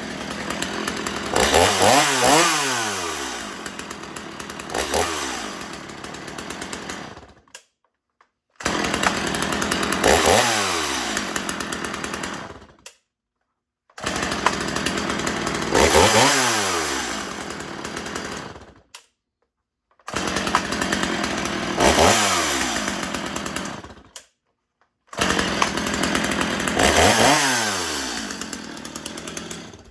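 Stihl MS 250 two-stroke chainsaw running and being revved, its engine speed climbing sharply and falling back in each burst. It comes in five short stretches, each cut off abruptly.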